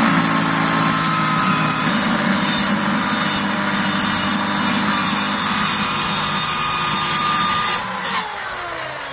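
Handheld corded power saw running steadily as it cuts into a wooden boat's hull plank, switched off about eight seconds in and winding down with a falling whine.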